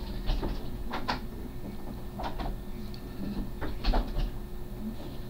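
Short creaks and knocks, about eight in uneven pairs, with low thuds under them, as a person shifts and jerks about in an office chair.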